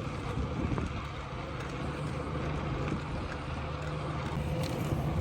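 A running vehicle: a steady low rumble that holds evenly throughout.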